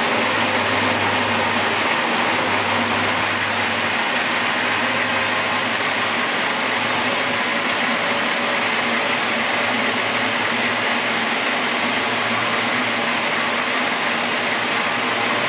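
Monarch 10EE lathe running with its spindle at about 3,000 RPM: a steady machine whir from the spindle, headstock and 5 hp drive motor.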